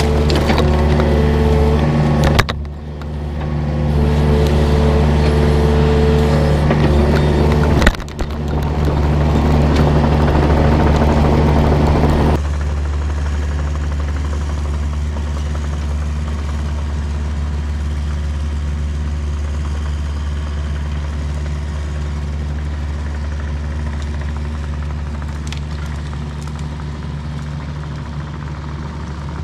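Yanmar compact excavator's diesel engine running under load while it works a pile of tree tops, with two sharp knocks about two and a half and eight seconds in. About twelve seconds in the engine suddenly sounds farther off and quieter, running steadily and slowly fading as the machine moves away.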